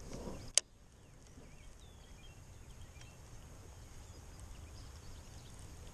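A single sharp click about half a second in, typical of a baitcasting reel engaging as the handle is turned after a cast. Faint outdoor ambience with small bird chirps follows.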